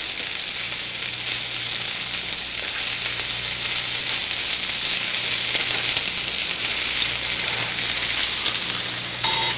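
Potatoes, green and red bell peppers and scallions sizzling steadily as they fry in a skillet over medium-high heat.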